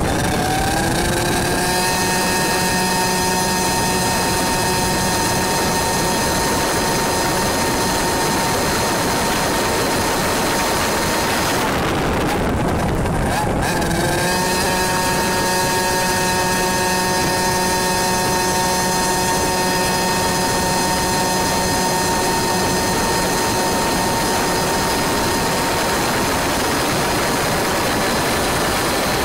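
100cc two-stroke kart engine running at high revs, held steady. The pitch climbs at the start, drops away for about two seconds near the middle as the throttle is lifted, then climbs back and holds.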